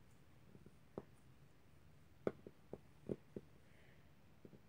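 Faint, scattered clicks and taps of fingers working at the lid of a small tin of magnetic putty that is hard to open, about seven in all.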